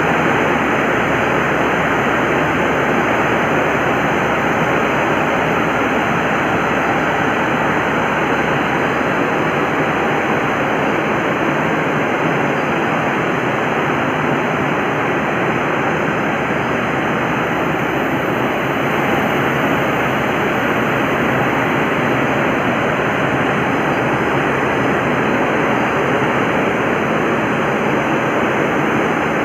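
Three-bowl textile mangle and drying range running: a loud, steady machine noise with a faint low hum, unchanging throughout.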